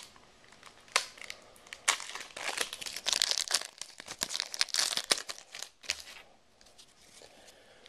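A trading-card pack wrapper crinkling and being torn open, a run of sharp crackles that dies away about six seconds in.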